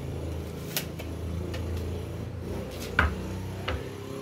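Wooden boards being handled on a concrete floor: a sharp click just under a second in, then two short knocks of wood about three seconds in, over a steady low hum.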